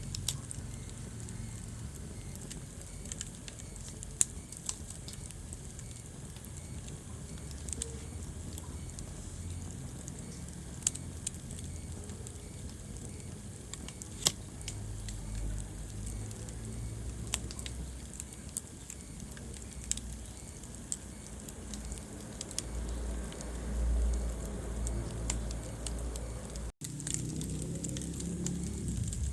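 Wood fire crackling in a fireplace: sharp pops and snaps every few seconds over the low, uneven rumble of the burning logs. The sound cuts out for an instant near the end.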